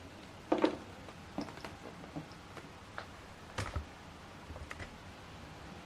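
Scattered light clicks and taps of a laptop's keys and trackpad being operated, irregular, with the loudest pair about half a second in and another cluster a little past three and a half seconds.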